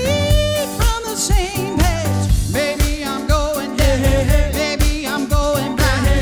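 A band playing a song: a singer's voice wavering with vibrato over a steady beat and bass.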